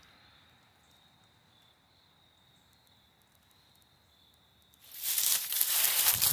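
A faint, steady, high insect trill, like crickets. About five seconds in, loud crunching of footsteps through dry fallen leaves starts.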